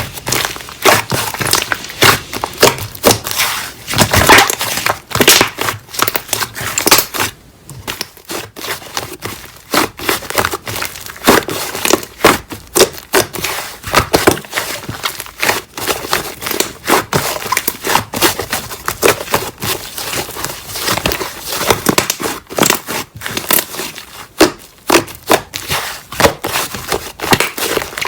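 Slime squished and pressed by hand, making dense, irregular crackling and popping, with a brief pause about seven seconds in.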